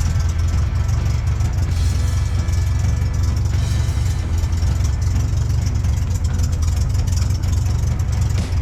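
Aeronca 11AC Chief's four-cylinder opposed engine running steadily at low power: a loud, even low rumble made of rapid firing pulses.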